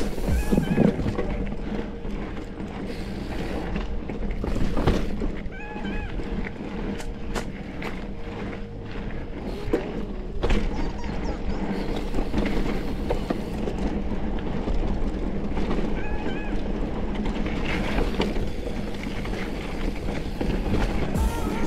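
Mountain bike ridden over a rough, rocky trail, heard from the rider's camera: tyres rolling and the bike rattling, with frequent knocks and clatters.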